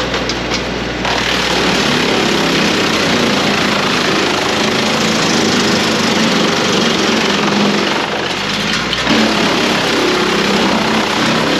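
Tractor engine driving a Woodmaxx WM8H 8-inch PTO wood chipper. About a second in, a loud rushing noise joins the engine as branches are fed through and chipped. It eases briefly near eight seconds in, then picks back up.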